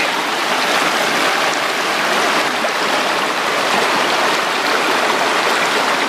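Mountain stream flowing over stones, a steady rush of water.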